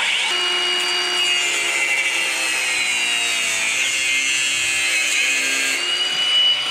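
Power-tool cutoff wheel slicing through tape-wrapped steel-braided -8 AN fuel hose: a steady high whine with a grinding hiss that starts abruptly. Its pitch sags a little under load mid-cut and picks back up near the end.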